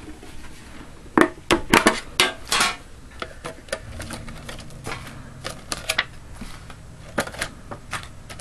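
Metal trading-card tin being pried open and handled: a quick run of sharp metallic clicks and clanks from the lid about one to three seconds in, then lighter ticks and taps as the contents are handled.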